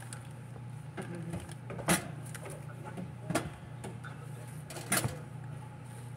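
Three sharp knocks, about a second and a half apart, from things being handled at a kitchen counter, over a steady low hum.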